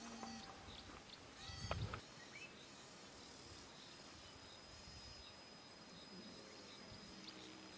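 Faint outdoor ambience of insects and birds: a steady high-pitched hiss with a few bird chirps cuts off sharply about two seconds in. After that come quieter scattered insect chirps and the odd bird call over a low background.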